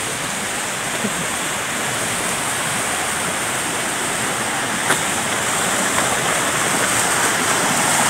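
Rushing water of a rocky stream cascading over boulders, a steady hiss that grows a little louder near the end. A faint short knock about five seconds in.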